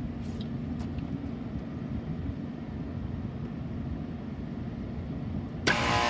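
Steady low rumble of a running rooftop HVAC unit, with a few faint clicks. About five and a half seconds in, a much louder machine sound with several steady whining tones starts suddenly.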